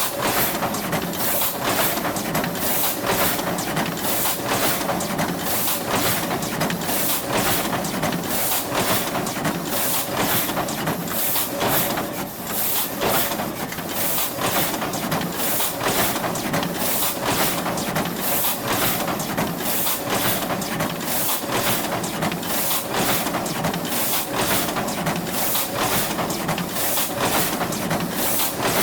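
Industrial cutting machine running, a steady mechanical din with a faint hum and a regular stroke repeating about twice a second.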